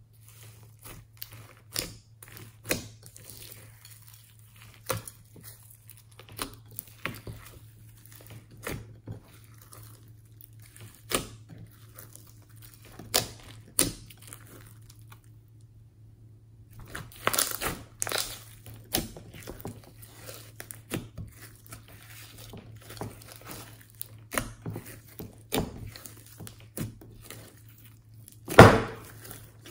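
Hands squishing and folding glossy slime mixed with beads and glitter: irregular wet pops, clicks and crackles. They are sparse at first and busier in the second half, with the loudest pop near the end.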